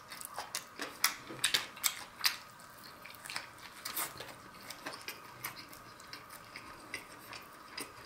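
Close-up chewing of a pepperoncini pepper and a prime rib sandwich on fresh bread: a run of irregular small wet clicks and crackles from the mouth, busiest in the first few seconds and then sparser.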